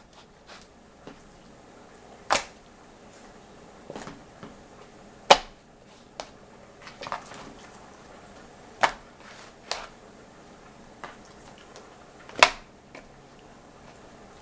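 Aluminium foil being handled and pressed down over a baking sheet: a scatter of separate sharp crinkles and taps, a second or more apart, in a quiet room.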